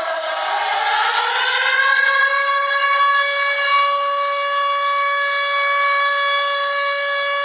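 Civil defense siren sounding the 10 November memorial signal for Turkey's nationwide moment of silence. Its pitch glides up over the first two seconds, then holds one steady tone.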